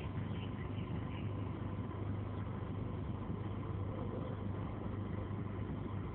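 A steady low mechanical hum with a constant rumble under it.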